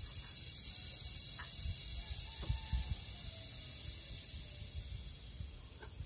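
Cicada singing: a steady, high-pitched buzzing hiss that swells over the first second, holds, and fades toward the end, with a low rumble underneath.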